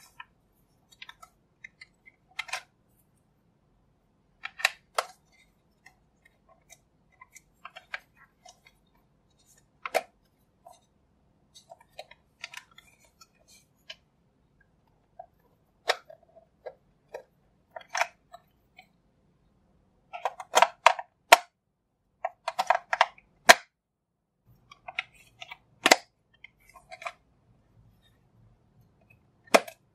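Clicks and taps of a small plastic toy rice cooker being handled and turned over, its plastic parts knocking and snapping. The sounds are scattered and short, with a denser run of clicks about two-thirds of the way through.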